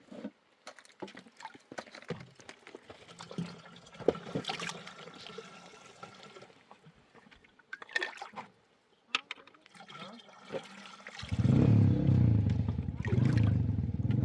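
Scattered small knocks and a faint trickle of water, then about eleven seconds in a small engine starts up and runs with a steady low throb, the loudest sound here.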